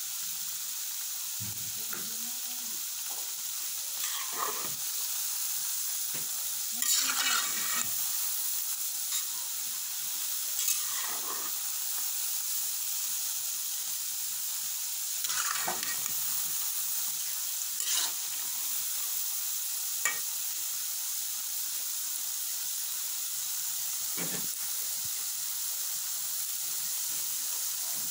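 Small pieces of dough deep-frying in hot oil with a steady sizzle, stirred several times with a slotted metal spatula that scrapes and knocks against the metal pot.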